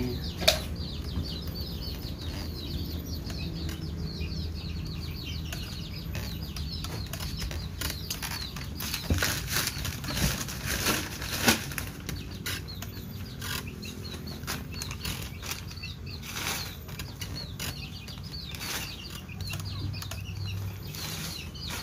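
Manure-and-rice-husk-charcoal planting mix being scooped into plastic polybags: rustling of the plastic and scraping, busiest around the middle. Small birds chirp steadily in the background.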